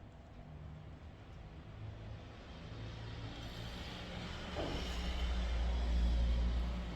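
A low, engine-like rumble that builds up and is loudest from about five to six and a half seconds in, with a faint hiss over it.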